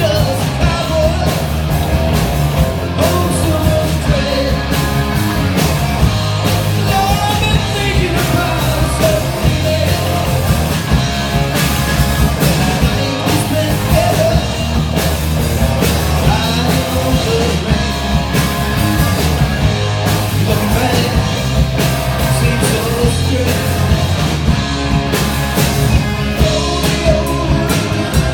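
Rock music with a steady beat, drums, bass and guitar, in an instrumental passage of a cowboy-themed song.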